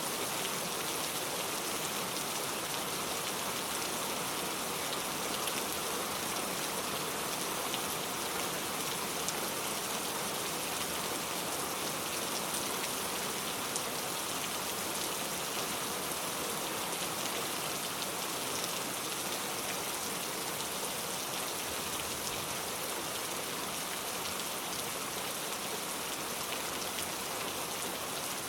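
Steady heavy rain falling, a dense even hiss with scattered close drop patters.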